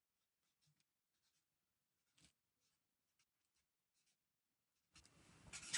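Faint felt-tip marker strokes on paper, a series of short, soft scratches as joined-up lettering is written, otherwise near silence. Near the end a few louder clicks and rustles come in.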